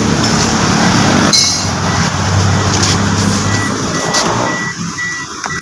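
Loud motor-vehicle engine noise that dies down over the seconds. About three and a half seconds in, a steady electronic beeping begins, about two short beeps a second.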